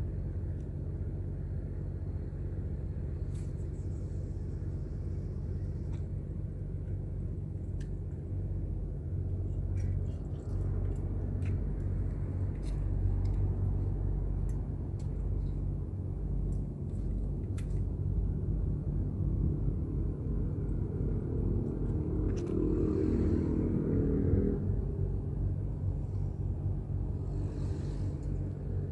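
An engine running steadily with a low drone, with scattered light clicks; the drone swells a little about two-thirds of the way in.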